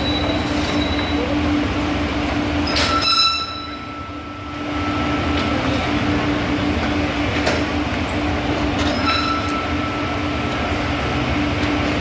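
Train running on rails: a steady rumble and hum, with short high squeals from the wheels about three seconds in and again about nine seconds in.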